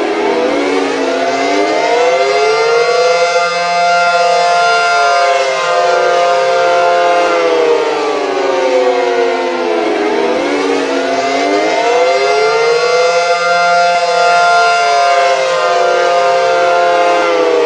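Synthesized Cold War civil defense sirens with 9/12-port rotors, sounding a two-note chord in a rising and falling wail. The pitch climbs for about three seconds, holds, then slides down slowly, and the cycle repeats about every ten seconds, so it rises twice.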